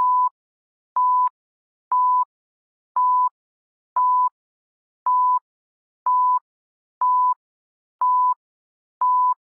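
Countdown timer beeps: a short, steady, mid-pitched beep once a second, ten in all, each beginning with a brief click.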